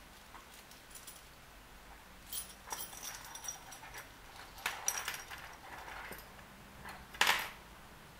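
Hands rummaging in an embroidered fabric bag, with fabric rustling and small metal jewelry clinking in scattered bursts, the loudest about seven seconds in.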